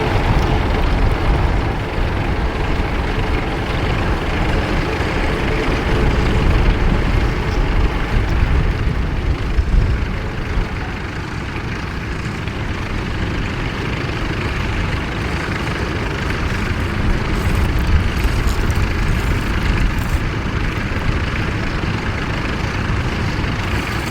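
Vintage tractor engine running steadily, a continuous heavy low engine sound.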